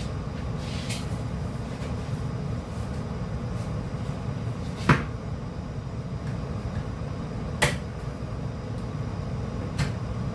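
A stirring spoon knocking against a cooking pan while thick, sticky calamay is mixed: a few sharp knocks, the two loudest about five seconds in and about two and a half seconds later, over a steady low hum.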